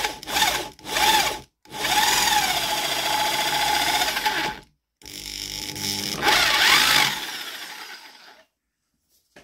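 Electric drill boring down into a block of wood, run in three short trigger bursts and then two longer runs, its motor pitch dipping and wavering as it cuts. It stops near the end.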